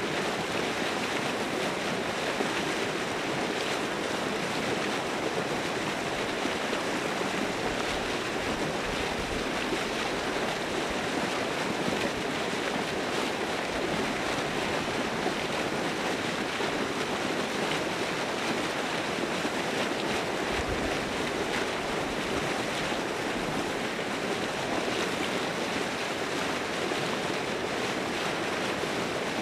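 Steady rushing of moving water, with a few brief low buffets of wind on the microphone.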